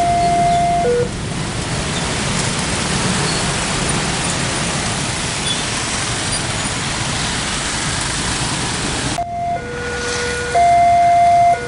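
Indonesian railway level-crossing alarm sounding its two alternating tones, switching about once a second, cutting off about a second in; then road traffic of motorbikes and cars over the open crossing. Near the end the alarm starts again, signalling an approaching train.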